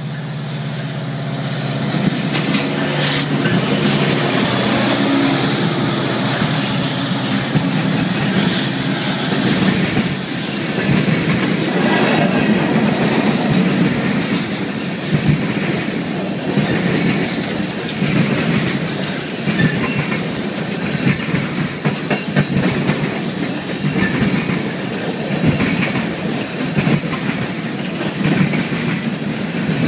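BNSF diesel freight locomotives pass close by with a steady engine drone. From about seven seconds in, a long string of coal cars rolls past, the wheels clattering in an uneven clickety-clack over the rail joints.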